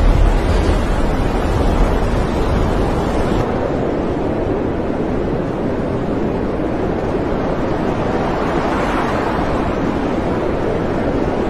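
Storm wind and rough sea heard from a ship, a steady rushing noise with wind buffeting the microphone in a heavy low rumble. A little over three seconds in the low rumble drops away, leaving a steadier wash of wind and waves.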